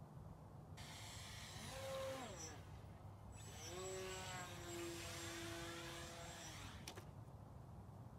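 Small brushless electric motor and propeller of a 3D-printed UMX Timber RC plane whining. It throttles up and back down briefly about two seconds in, then rises again and holds a steady pitch before dropping away just before seven seconds in, with a sharp knock as it stops.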